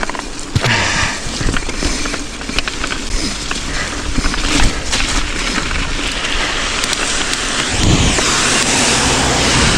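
Mountain bike riding down a rocky trail: tyres crunching over gravel and rock with a constant clatter of small knocks and rattles, and wind rushing over the action camera's microphone.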